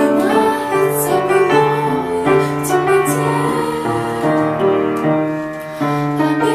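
A woman singing a slow song with piano accompaniment, her voice wavering with vibrato over sustained piano chords.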